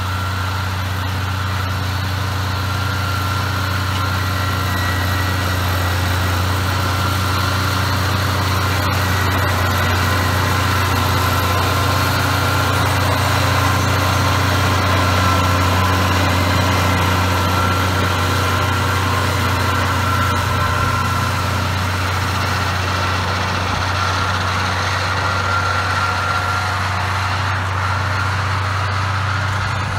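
John Deere 4250 tractor's six-cylinder turbo diesel running steadily under load while pulling a hay mower through standing grass. A constant low drone with a steady high whine above it.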